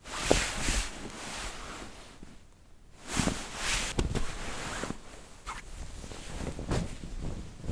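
Cloth bed sheet being shaken and rustled, with swishes in surges: a strong one at the start and another about three seconds in, lighter rustling between.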